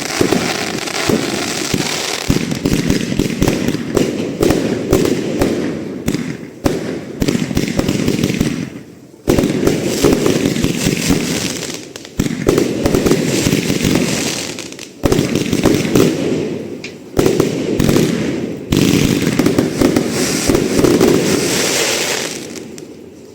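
Fireworks display barrage: many rapid overlapping bangs in waves, each starting suddenly and dying away over a second or two, fading out near the end.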